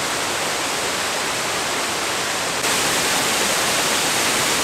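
A waterfall plunging down a cliff into a creek, making a steady rush of falling water. It steps up louder and brighter a little past halfway through.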